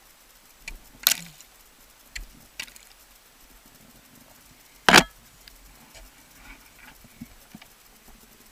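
Ice axes striking into waterfall ice during a climb: a few sharp hits, the loudest about five seconds in and a strong one about a second in, with lighter clicks and taps between.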